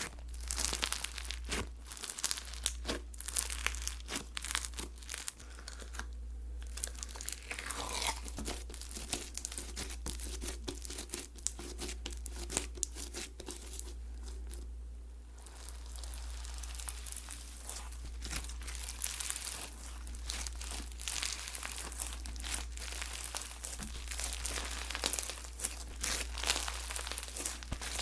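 Slime being squished, stretched and folded by hand, giving dense, irregular crackling and crinkling pops, with a steady low hum underneath.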